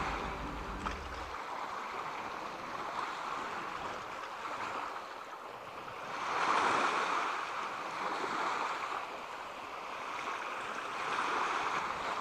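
Sea waves washing in, the rush swelling and fading every four to five seconds.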